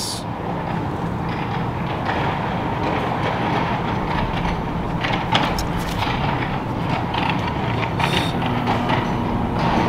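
Steady mechanical rumble and hum with a few faint clicks; a low steady tone joins near the end.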